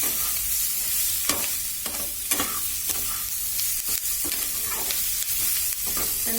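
Chicken and chopped onions sizzling in a pan with very little oil on a low flame, as a utensil stirs them, scraping the pan bottom. A steady high hiss runs under repeated short scrapes, one every half second to a second.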